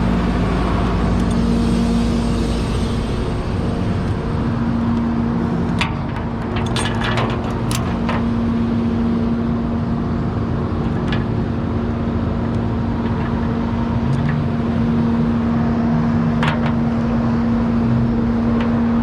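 A vehicle engine running steadily with a constant hum. There are a few sharp clicks about six to eight seconds in and once more near the end.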